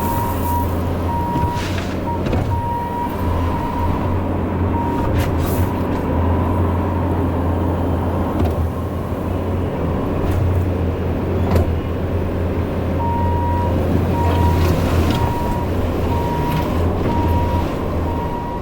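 Vehicle engine running steadily, with a high beep repeating about once a second for a few seconds near the start and again from about two-thirds of the way in.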